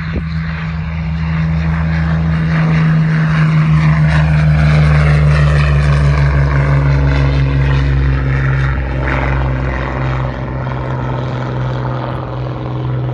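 Hawker Hurricane's Rolls-Royce Merlin V12 engine running at take-off power as the fighter lifts off and climbs away, growing louder for the first few seconds and then easing slightly as it draws off.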